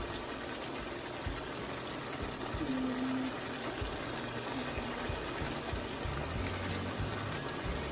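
Chicken and sauce simmering in a nonstick skillet: a steady bubbling hiss with fine crackling.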